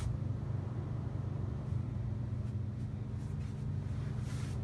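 Steady low mechanical hum of onboard equipment in a boat cabin, with a brief soft rustle near the end.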